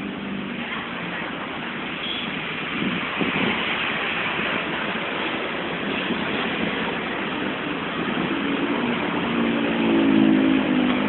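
Road traffic going by: steady engine and tyre noise of passing vehicles, with one engine's hum growing louder near the end as it comes close.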